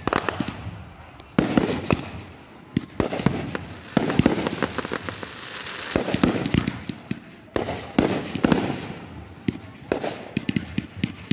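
Consumer aerial fireworks going off in quick succession: repeated sharp bangs of bursting shells, loud clusters every second or two, with crackling sparks and booms echoing between them.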